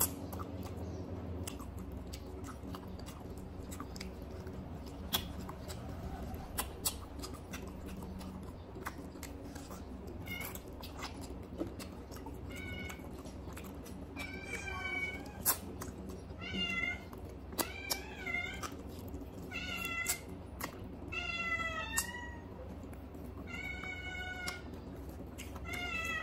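A cat meowing over and over, a series of short calls from about ten seconds in to the end. Underneath are the wet clicks and smacks of a person chewing food by hand.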